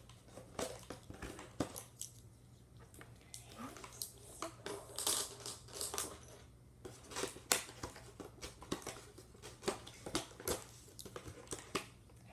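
Plastic toy axle sticks clicking and rattling as they are pulled out of a plastic insert tray and set down on a table: a quick, irregular series of light clicks.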